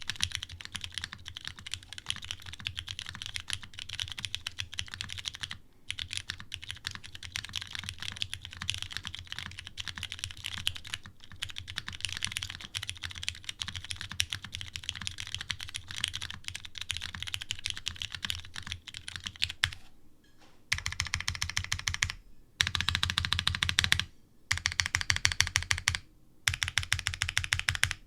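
TGR Jane V2 ME custom mechanical keyboard with lubed Cherry Hyperglide Brown tactile switches and GMK keycaps, typed on fast and continuously. About two-thirds of the way through, the keystrokes become louder and come in quick runs separated by brief pauses.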